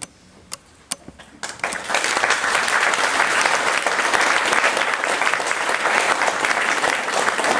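Audience applauding at the end of a talk: a few scattered claps at first, then full applause that builds up about a second and a half in and holds steady.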